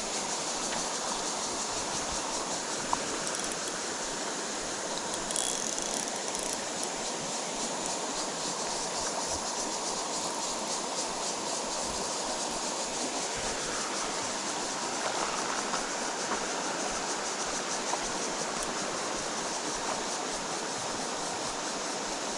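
Stream water rushing steadily, a continuous even hiss, with a few faint clicks.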